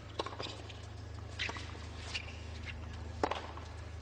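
Tennis ball being struck by rackets and bouncing on a hard court during a rally: a series of short, sharp pocks about a second apart, the loudest a little over three seconds in, over a steady murmur of stadium background.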